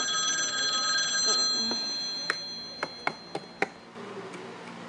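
A ringing tone, like an alarm or a bell ringtone: several steady high pitches sounding together, holding for about a second and a half and then fading out over the next two seconds. As it fades, five sharp clicks follow, typical of hard plastic toys being tapped or handled.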